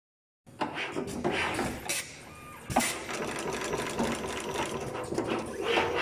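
Multicore cable stripping and ferrule crimping machine running: a steady mechanical hum broken by sharp hisses and clacks at irregular intervals as it works the core wires. It starts about half a second in.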